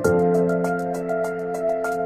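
Background music: soft held chords with a light, quick ticking beat.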